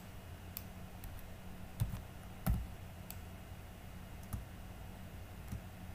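Scattered clicks of a computer mouse and keyboard, about six spread over the few seconds, the loudest about two and a half seconds in, over a faint steady low hum.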